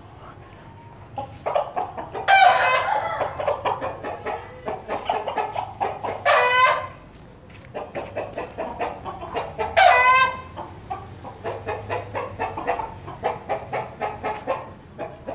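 Aseel chickens clucking steadily in quick short notes, broken by three loud pitched calls about two, six and ten seconds in.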